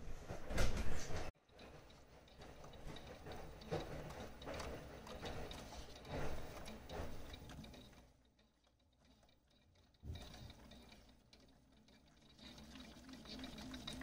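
Miele Softtronic toy washing machine running its wash cycle: its small motor turns the drum and water sloshes inside. The sound drops away for about two seconds near the middle, then starts again suddenly.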